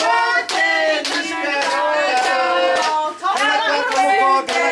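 A song with singing voices over a steady beat.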